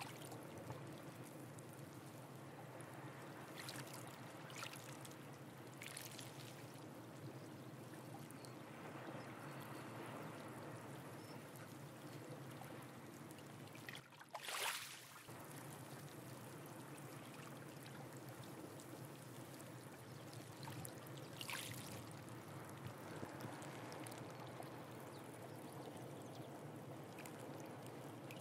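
Sea water washing and trickling among shore rocks and rock pools, a faint steady wash with a few brief splashes, the loudest about halfway through.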